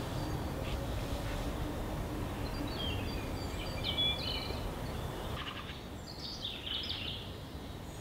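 Small birds chirping and calling in short bursts over a steady low outdoor rumble.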